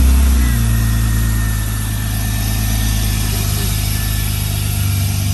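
BMW E36 engine idling just after starting, breathing through a freshly installed aftermarket air intake; it settles into a steady idle within the first half second.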